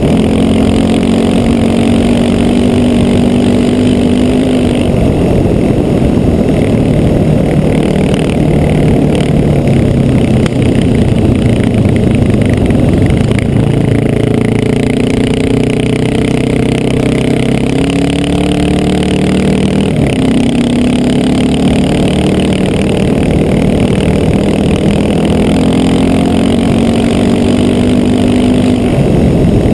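Honda XR650L's single-cylinder four-stroke engine running under way at road speed over a steady rushing noise. The engine pitch holds steady, drops a few seconds in, rises and falls through the middle, then settles again near the end.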